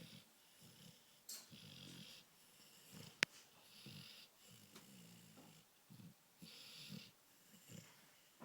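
A sleeping dog snoring, with a low rattly snore and a hissing breath alternating about once a second. A single sharp click cuts in about three seconds in.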